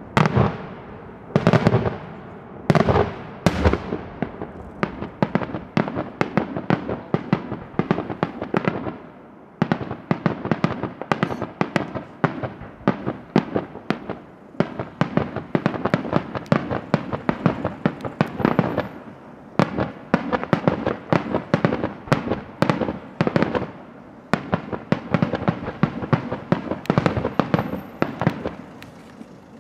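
Daytime aerial fireworks: a few heavy bangs in the first four seconds, then a dense run of sharp cracks, several a second, as clusters of coloured-smoke shells burst overhead.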